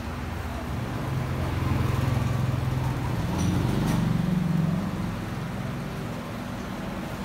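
Street traffic: the low hum of passing vehicle engines, which swells twice as vehicles go by, first about a second in and again past the middle.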